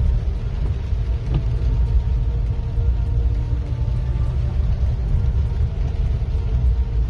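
Steady low rumble of a vehicle driving on a wet dirt road, heard from inside the cab: engine and tyre noise.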